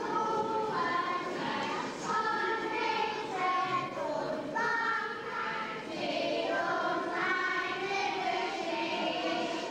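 A group of young children singing a song together, holding each note for about half a second to a second as the tune steps up and down, over a background of room noise.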